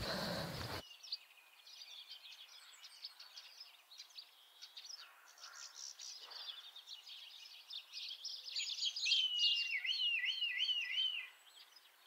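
Songbirds singing, a string of chirps and trills with one bird repeating a looping whistled phrase about three quarters of the way through. The song stops just before the end.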